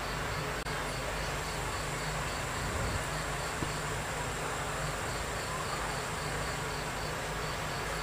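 Cricket chirping steadily, a run of short, evenly spaced chirps about two or three a second, over a steady low hiss.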